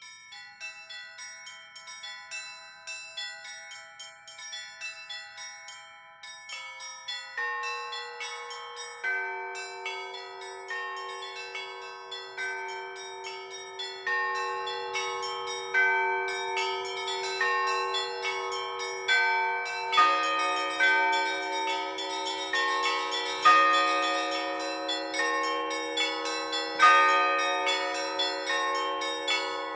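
Russian church bells rung by a bell ringer: small high bells struck in quick, steady strokes, with larger, lower-pitched bells joining in one after another. The lowest bell comes in about two-thirds of the way through, and the peal grows louder.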